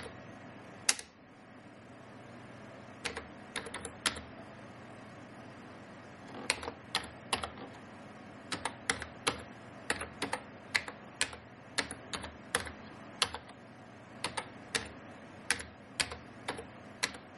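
Keystrokes on a computer keyboard: single sharp clicks in short, uneven runs as a command is typed, with a couple of pauses in the first six seconds.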